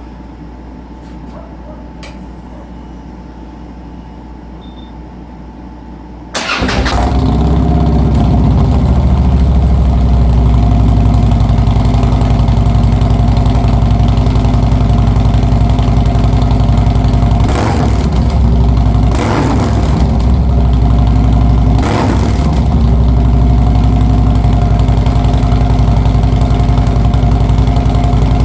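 Harley-Davidson 103 Twin Cam V-twin fitted with TAB Performance 50 Cal slip-on mufflers starts about six seconds in and settles into a loud, steady idle, with three quick throttle blips in the latter half.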